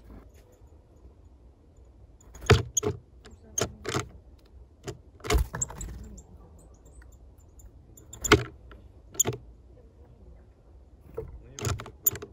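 A nuthatch landing and pecking on a wooden bird feeder heaped with bread: about a dozen sharp taps and knocks on the wood, in clusters a few seconds apart.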